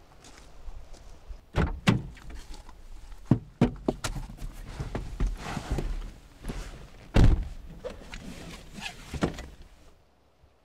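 Toyota sedan's door being opened and shut with heavy thunks, among footsteps and the rustle of someone climbing into the driver's seat; the loudest thunk comes about seven seconds in.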